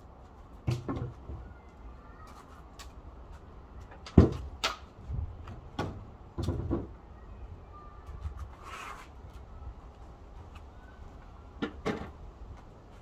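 Scattered knocks and clunks of hand work on a wooden trailer box, about a dozen separate hits with the loudest about four seconds in.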